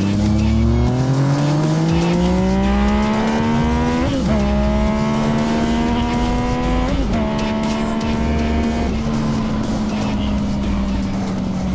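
Yamaha FZ-09's 847 cc inline-three engine pulling hard under acceleration, its pitch rising, with two brief breaks about four and seven seconds in as it shifts up, then holding steady at speed under wind rush.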